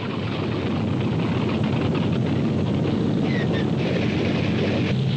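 Sound effect of a propeller airplane's engine running, swelling a little at first and then holding steady and loud.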